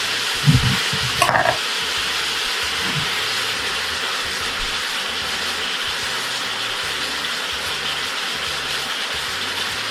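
Garlic and spices sizzling steadily in a hot pot just after lemon juice goes in, with two short knocks of a utensil within the first second and a half.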